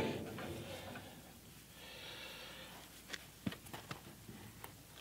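Small metallic clicks and taps of an adjustable wrench being fitted and worked on the locking-handle nut of an old cement mixer, a few of them spread over the last two seconds. There is a breath about two seconds in.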